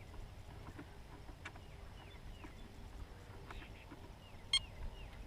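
Faint clicks and taps of hands working on an RC boat's propeller and drive, with one sharper click about four and a half seconds in. Short falling chirps recur faintly behind.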